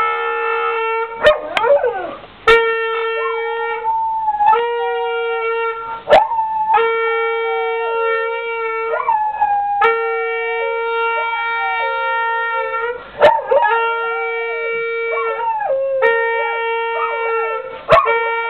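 A horn blown in a string of long steady notes, each held for a few seconds, while a dog howls along, its voice wavering and sliding downward in pitch. A few sharp clicks fall between the notes.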